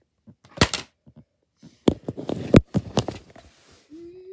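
A plastic DVD case and a cardboard game box are knocked over and clatter onto a wooden floor: one sharp knock, then a cluster of knocks and rattling a second later. Near the end a voice starts humming a wavering tune.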